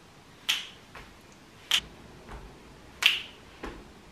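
Finger snaps in a steady rhythm: three sharp snaps about a second and a quarter apart, each followed by a fainter click.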